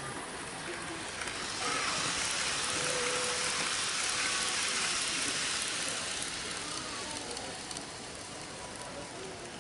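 Model train running past close by on the layout's track: a rushing hiss of wheels on rail that swells about a second and a half in and fades away by about seven seconds.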